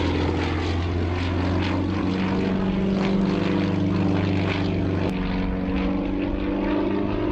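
Propeller engine of a Sukhoi aerobatic plane in flight, a steady loud drone whose tone shifts about five seconds in.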